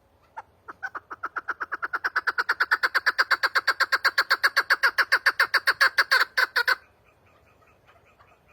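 Chukar partridge giving its rapid chuck-chuck call: a series of notes that starts sparse, builds to about eight a second and grows louder, then stops abruptly near the end, followed by faint soft clucks.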